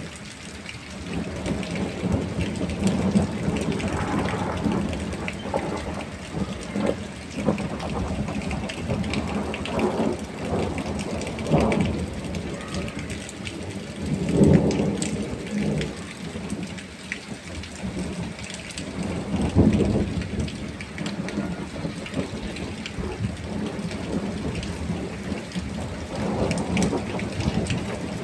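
Heavy thunderstorm rain falling steadily, with rolls of thunder swelling up several times; the loudest come about fourteen and twenty seconds in.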